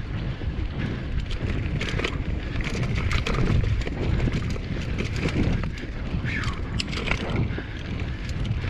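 Mountain bike rolling over dirt singletrack: wind buffeting the GoPro Hero 7's microphone, with tyre noise and frequent short clicks and rattles from the bike.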